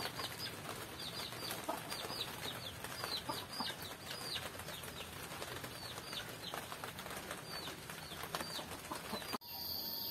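Many small birds chirping, with short calls that sweep downward, several a second, over a background hiss. About nine seconds in the sound cuts abruptly to a steady, high insect trill.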